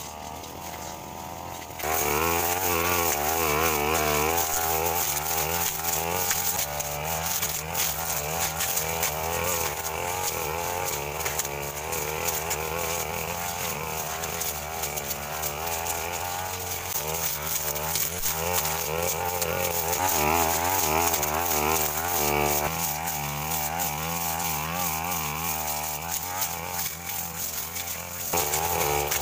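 Backpack brush cutter engine running at high revs, its speed rising and falling as the blade cuts through dense undergrowth. It gets louder about two seconds in.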